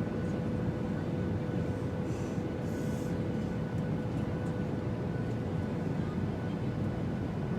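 Steady airliner cabin noise in flight: an even low rumble of engines and airflow with a faint steady hum running through it.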